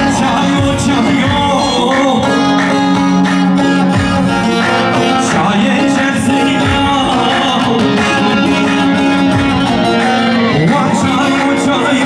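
Loud wedding dance music with a singing voice, a held melody and a steady beat.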